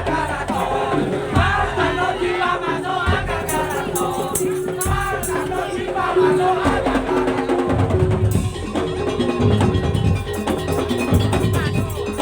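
Madurese tong-tong (daul) music: an ensemble of wooden slit drums and percussion plays a busy rhythm under a wavering melody. The drumming turns heavier and denser about seven seconds in.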